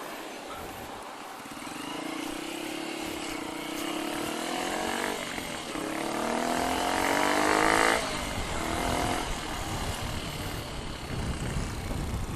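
Motorcycle engine accelerating, its pitch rising twice as it pulls through the revs, loudest just before it cuts off suddenly near the middle, as the throttle is closed.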